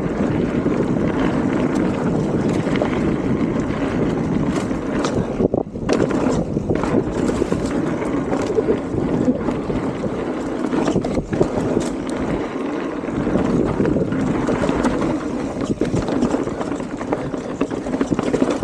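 Mountain bike riding down a wet dirt trail: steady tyre and wind noise on the microphone, with scattered clicks and rattles from the bike.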